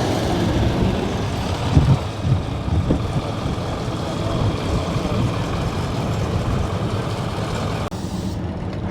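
A motor vehicle's engine running loudly, a steady low rumble with noise across the range, with a few louder bumps about two seconds in.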